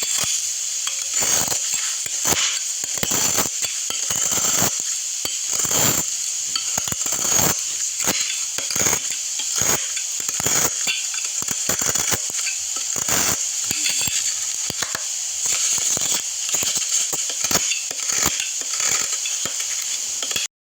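A blade cutting and carving a bar of soap: a long run of irregular, crisp scrapes and crackles over a steady high hiss, cutting off abruptly near the end.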